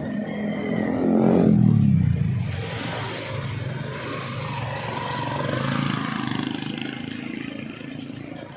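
A motor vehicle passing close by on the street, its engine loudest about two seconds in and dropping in pitch as it goes past, then fading into general street traffic noise.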